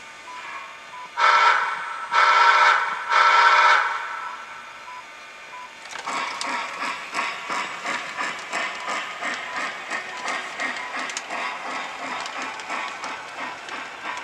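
Lionel LionChief Pere Marquette 1225 model steam locomotive's sound system: three whistle blasts in quick succession, the three-blast signal for backing up, then steady rhythmic steam chuffing from about six seconds in as the engine moves off.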